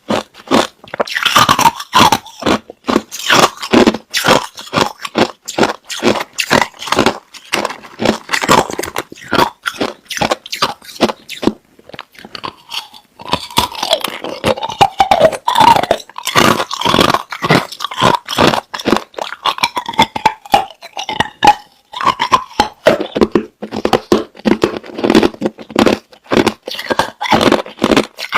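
Clear, hard crushed ice being bitten and chewed close up, loud rapid crunches several times a second. Around the middle the crunching turns into a wavering, squeakier grinding for a few seconds before the sharp bites pick up again.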